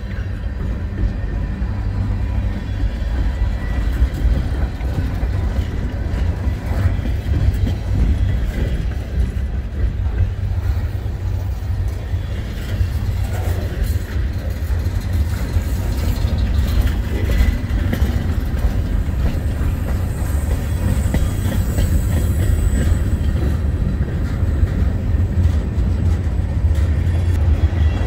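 Freight cars of a mixed freight train rolling past at speed: a steady low rumble of steel wheels on the rails with clatter from the passing tank car, boxcars and flatcars.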